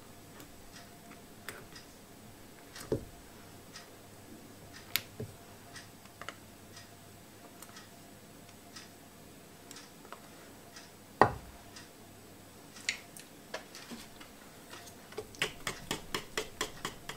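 Scattered light clicks and knocks of kitchen utensils against a bowl, with one louder knock about eleven seconds in. Near the end an even tapping, about three a second, begins as cake batter is stirred in the mixing bowl to dissolve the sugar.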